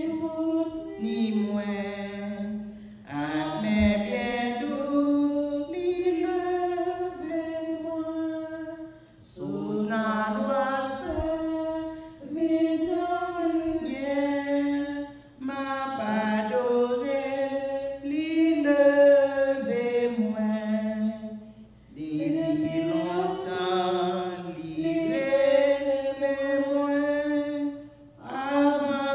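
A woman singing a hymn of consecration unaccompanied, in melodic phrases of a few seconds with short pauses for breath between them.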